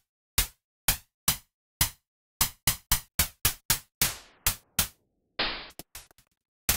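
Synthesized snare drum made from filtered white noise with a short envelope, struck repeatedly from a keyboard: hits about two a second, then a quicker run at about four a second. About four seconds in, one hit rings out with a longer fading tail. About five and a half seconds in comes a longer, duller burst with the top end cut off, then a few short crackles and one more sharp hit near the end.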